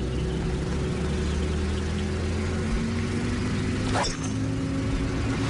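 A golf club striking the ball on a tee shot, one sharp crack about four seconds in. Under it, a steady low mechanical hum, one tone rising slightly in pitch.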